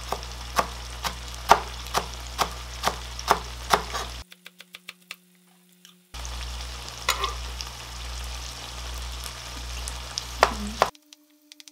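A knife slicing a green chili pepper thin on a cutting board, at about two cuts a second, over oil sizzling as firm tofu fries in the pan. The sound cuts out abruptly about four seconds in. The sizzle comes back with a few more knife taps and cuts out again near the end.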